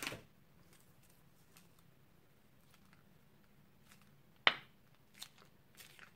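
White slime squeezed from a plastic piping bag onto slime: a few sharp clicks and pops, the loudest about four and a half seconds in, with another at the start and smaller ones near the end.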